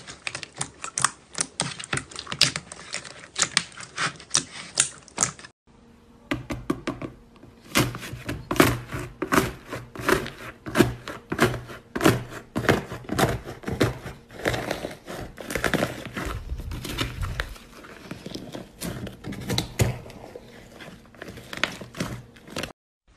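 Hands squeezing and kneading slime, making rapid sticky clicks and pops of trapped air. About six seconds in it changes to hands pressing and breaking up a tray of purple slime with a cracked top layer, with denser, fuller clicking and popping.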